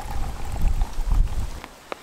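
Coffee pouring into a stainless-steel tumbler under a low wind rumble on the microphone. The rumble dies down about one and a half seconds in, and a short click follows near the end.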